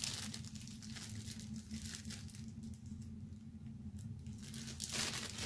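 Clear plastic bag crinkling as a chuck wrench is unwrapped from it, busiest in the first couple of seconds and again near the end.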